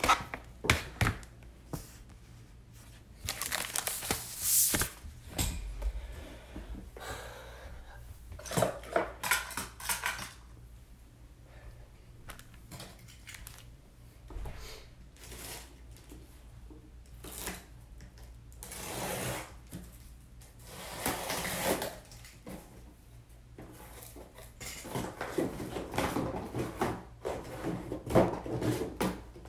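Intermittent rustling, clicks and light clatter of objects being handled close to the microphone, in bursts of a second or two with quieter gaps between.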